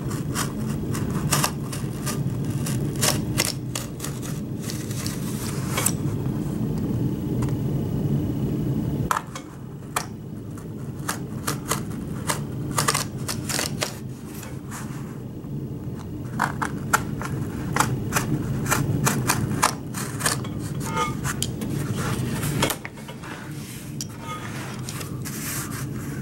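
Utility knife blade slicing through cardboard: an irregular run of scratchy clicks and crackles, with a couple of brief pauses, over a steady low hum.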